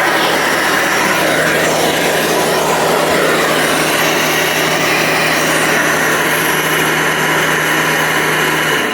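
Hoover Runabout upright vacuum cleaner running with a steady motor hum, switched off at the very end so the motor begins to wind down.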